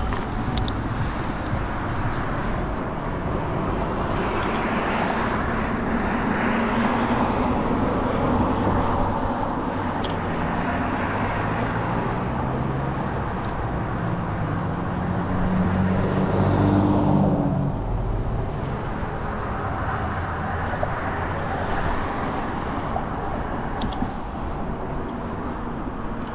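Road traffic heard from a moving e-bike: a steady rush of noise with cars passing. The loudest pass, about two-thirds of the way through, brings a low engine hum.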